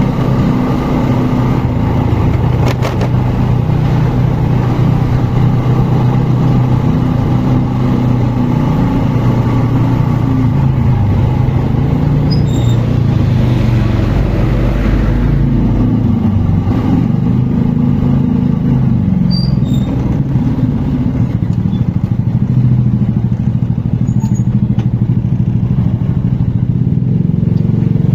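Motorcycle engine running at a steady cruising speed on the road, with a low rumble of wind on the microphone.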